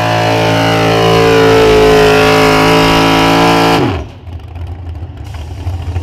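Modified gas pickup truck's engine running flat out under load, pulling the sled. About four seconds in the throttle is released: the pitch drops sharply and the engine falls to a low, rough idle as the pull ends.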